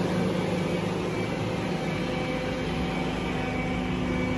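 Utility bucket truck's engine running steadily, a constant hum with a few held tones.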